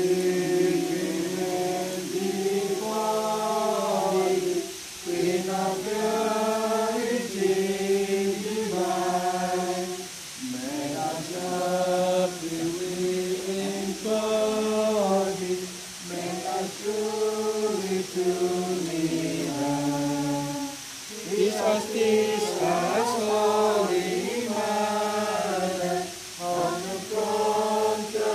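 A group of people singing a hymn together in unison, in phrases of about five seconds with brief pauses for breath between them.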